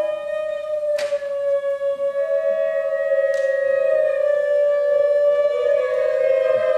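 Wind ensemble playing a slow, sustained passage: woodwinds holding long notes that shift slowly in pitch, with two light percussion strikes, about one and three and a half seconds in.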